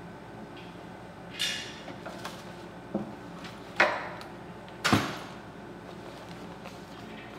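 Clatters and knocks of dishes and counter fittings being handled behind a cafe counter, about five separate strokes with the loudest two just past the middle, one ringing briefly, over a steady low hum in the room.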